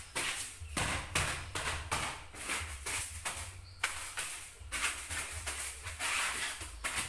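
A quick, uneven run of rustles and light knocks, several a second, over a low rumble.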